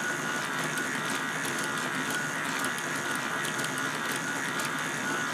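Motor-driven K'nex plastic gears and chain tape running steadily: a constant whine with light irregular clicking as the parts turn and the read assembly switches the transmission.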